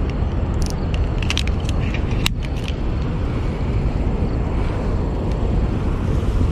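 Steady low rumble, with a few sharp clicks from handling the baitcasting rod and reel in the first half.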